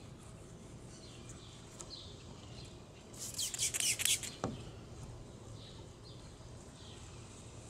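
Hand trigger spray bottle squirting several quick sprays of liquid onto a truck's painted bed cover, about three seconds in, followed by a single light knock.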